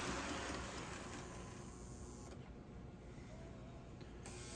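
Postwar Lionel toy freight train, pulled by Erie Alco diesels, running on the track: a steady mechanical rolling and motor noise that fades over the first two seconds and then stays faint.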